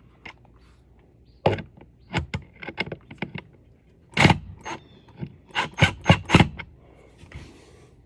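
Sharp clicks and clinks of small hard parts being handled, in several short clusters, with a faint scraping hiss near the end.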